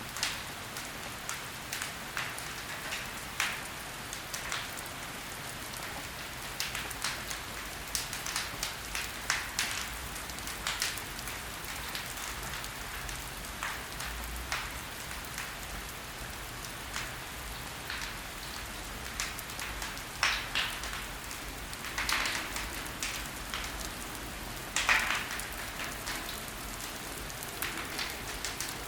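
Wood fire burning in a fireplace: a steady soft hiss with irregular sharp crackles throughout, a few of them louder in the second half.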